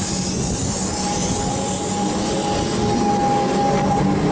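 Comeng electric suburban train pulling away and passing close by, its traction motors whining and rising slowly in pitch as it gathers speed over a steady electrical hum.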